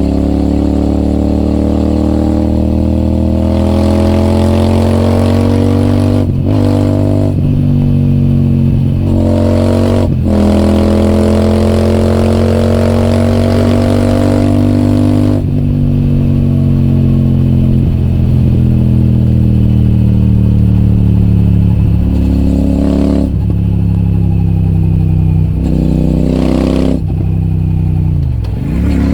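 Royal Enfield Super Meteor 650 parallel-twin with an AEW TE 202 aftermarket exhaust, running loud under way. Its pitch climbs in long pulls, each broken off by a brief dip like a gear change, then settles and falls away near the end.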